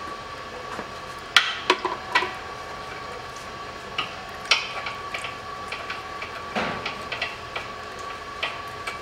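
Irregular sharp metallic clicks and taps of a screwdriver-type driver on the filter bolts of an Aisin 09D automatic transmission, pan removed, as the filter is unscrewed. The loudest clicks come in a quick cluster about a second and a half in.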